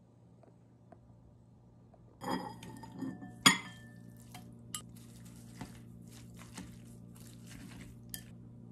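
Tableware clinking against a ceramic bowl: a clatter a little after two seconds in and one sharp clink about a second later, then scattered small clicks as noodles are mixed in the bowl.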